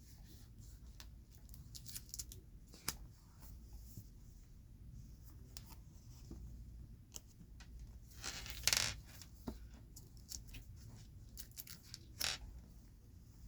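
Oversized Pokémon cards handled up close: scattered light taps and scrapes, with a longer rustle a little past halfway and a brief one near the end.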